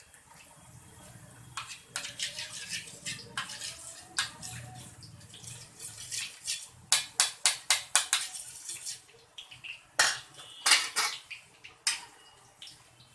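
Metal kitchen utensils clinking and tapping against a metal pan, in uneven runs of sharp taps, the quickest cluster about seven seconds in and another loud run about ten seconds in.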